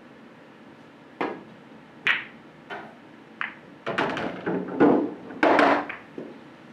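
Pool shot: a cue tip strikes the cue ball, then sharp ball and rail clicks about every half second as the cue ball kicks off the cushion and runs into the hanging three ball. Louder knocks and rattles follow as the pocketed ball drops into the table and rolls down its ball return.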